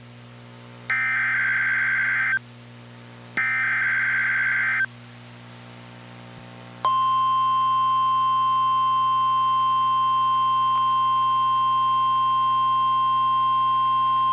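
NOAA Weather Radio Emergency Alert System alert from station KEC91. It starts with two warbling SAME data bursts of the digital header, about a second apart. After a short gap, the steady 1050 Hz warning alarm tone starts about seven seconds in and holds.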